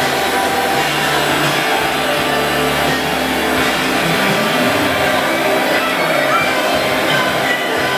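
Background music with sustained notes that shift every second or so.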